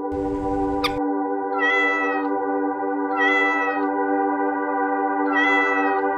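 A domestic cat meowing three times, each meow short with a slightly falling pitch, over steady background music. A brief swish comes in the first second.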